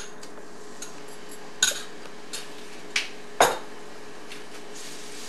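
A metal spoon clinks and knocks against a bowl and a frying pan, several sharp strikes, as chopped garlic is tipped into hot oil. A soft sizzle starts up near the end.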